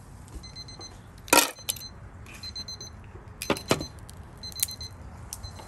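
Sharp clicks and clacks of grilled mussel shells and metal tongs being handled as the half shells are pried off, the loudest about a second and a half in. Through it an electronic alarm sounds short, high beeps in repeated groups.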